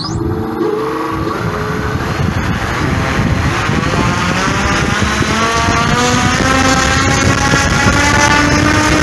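Turnigy SK3 6374 192 kV brushless outrunner electric motor spinning the propeller of a large RC PZL-104 Wilga model on a static run-up. The motor whine and propeller rush climb slowly in pitch and loudness as the throttle is advanced, from about 80 W to over 1,300 W drawn.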